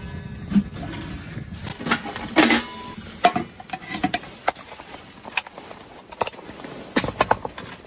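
Irregular clinks and knocks of objects being handled, some with a short metallic ring, over a low rumble that fades after the first couple of seconds.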